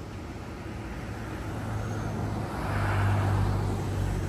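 A car driving by close, its engine and tyre noise swelling about two and a half seconds in, loudest around three seconds, then easing off, over a steady low engine hum.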